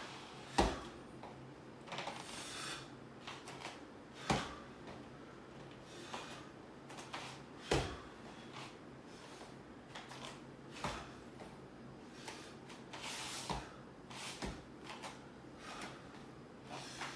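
Thuds and swishes of tai chi movement: bare feet stepping and stamping on a foam mat, with about six sharp thuds a few seconds apart, the first one loudest, and short swishes of loose clothing in between.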